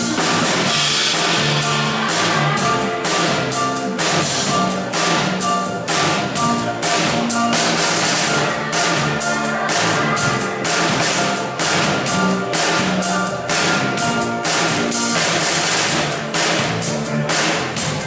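Live pop band playing through a sound check: drum kit keeping a steady beat under electric bass, guitars and keyboard.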